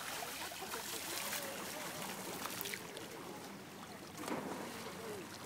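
Outdoor lake ambience: wind and small waves lapping, with irregular soft splashes.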